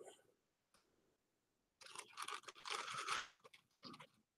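Paper flowers rustling and crinkling as they are handled, an irregular crackle lasting about a second and a half near the middle, with a couple of faint ticks after it.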